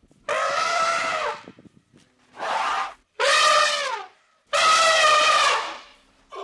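An animal calling four times, loud, drawn-out and brassy, each call lasting about half a second to a second and a half and holding its pitch before dipping at the end.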